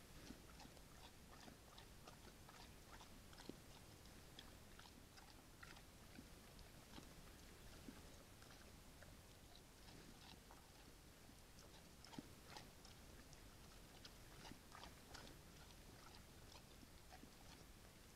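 A bear chewing and crunching food close to the trail camera: faint, irregular crunches and clicks, several a second, over a steady background hiss.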